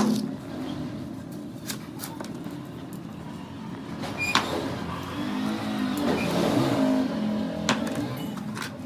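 A motor running steadily, growing louder around the middle, with a few sharp metallic clicks.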